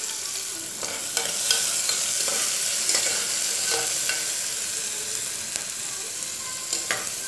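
Chopped onions sizzling in hot oil with cumin seeds in an aluminium pressure cooker, a steady hiss, with a spoon scraping and clicking against the pot as they are stirred.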